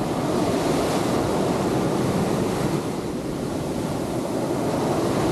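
Surf of a rough sea breaking and washing up the shore, a steady rushing noise, with wind buffeting the microphone.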